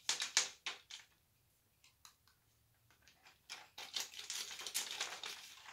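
Costume jewelry being handled, clicking and rattling: a few quick clicks at the start, a quiet pause, then from about three and a half seconds in about two seconds of dense clicking and rustling.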